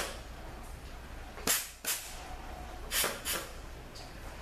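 Short blasts of compressed air from a handheld blow gun, fired into the clutch feed ports of a 62TE compounder assembly during an air check. The blasts come as two quick pairs, the first about a second and a half in and the second about three seconds in.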